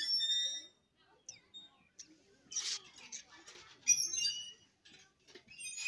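Puppy whimpering in short, high-pitched squeals: one at the start and another about four seconds in.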